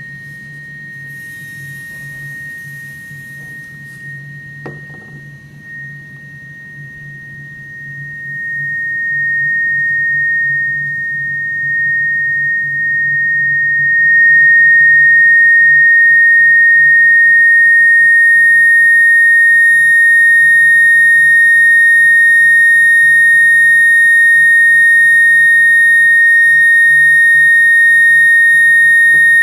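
A steady, high-pitched pure tone, a sine-wave test tone of the kind played in cymatics experiments, growing louder over several seconds until about halfway through and then held at full strength. A low steady hum runs underneath.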